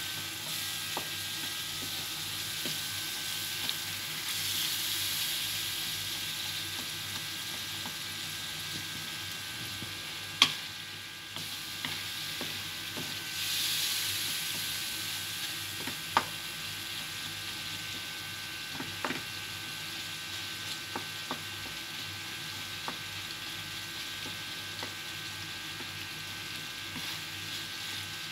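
Onion, tomato and spice masala sizzling in oil in a nonstick pan, with a little water added to cook it down to a paste, while a wooden spatula stirs it. The sizzle swells twice, about four and thirteen seconds in, and the spatula knocks sharply against the pan a few times.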